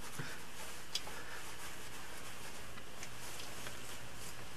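Steady low hum and hiss inside an enclosed ski gondola cabin, with a couple of faint clicks, about a quarter second and a second in.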